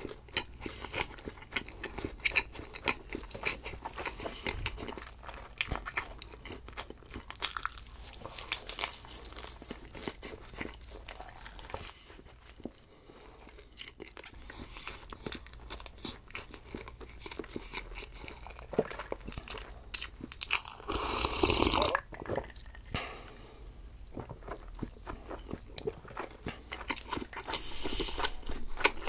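A person biting and chewing thin-crust pizza, the crisp crust crunching in many short crunches; the loudest, densest stretch comes a little over two-thirds of the way in.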